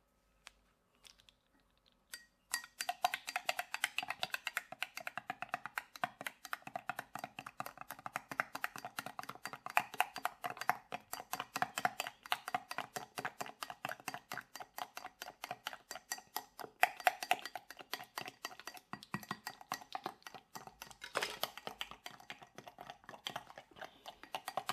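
A utensil stirring gelatin mixture quickly in a container, clicking rapidly and steadily against its sides. The clicking starts a couple of seconds in.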